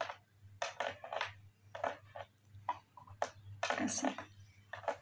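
Knitting needles clicking and tapping against each other in an irregular run of light clicks as stitches are slipped and knitted, with a brief louder noise a little before four seconds in and a faint steady low hum underneath.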